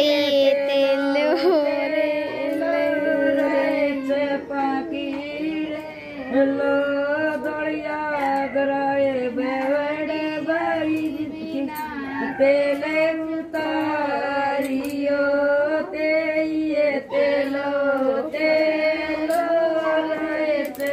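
Women singing a slow folk song for the wedding ritual: one melody with long held notes, unbroken throughout.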